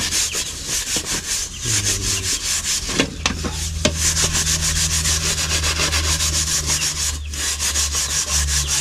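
A scouring pad scrubbed hard back and forth over the sooty, blackened underside of a metal frying pan, a quick, steady run of rasping strokes, scouring off burnt-on black crust.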